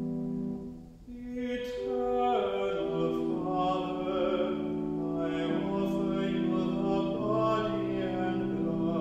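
A sustained keyboard chord dies away about a second in. A classically sung solo voice then begins a slow hymn-like melody over keyboard accompaniment.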